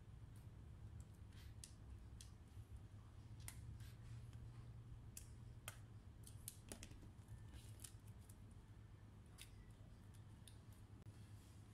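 Faint scattered clicks and ticks of a small screwdriver and plastic laptop parts being handled during keyboard removal, over a low steady hum.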